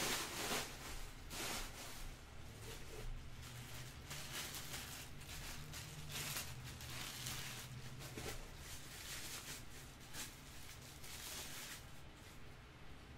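Plastic bag and foam packing wrap rustling and crinkling in irregular handfuls as a statue accessory is unwrapped, thinning out near the end.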